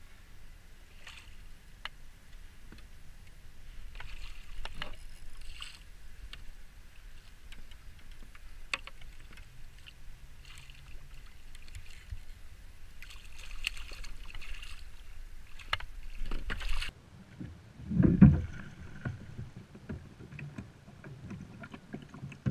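A hooked red drum splashing at the surface beside a plastic kayak, in short bursts, with wind on the microphone. About three-quarters of the way through the sound changes abruptly, and a loud thump and knocking on the kayak follow as the fish is netted and brought aboard.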